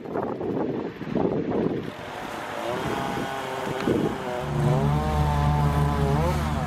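Wind gusting on the microphone, then an engine running with a steady low hum from about four seconds in, its pitch rising briefly near the end.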